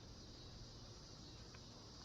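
Faint, steady chorus of summer insects: a continuous high-pitched drone that does not let up, over a low rumble.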